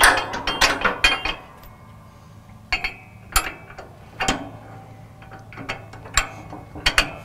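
Steel pins and clips clinking and clicking as a hydraulic cylinder is pinned into its mounting brackets: a quick cluster of sharp metallic clicks in the first second, then single clicks about every second.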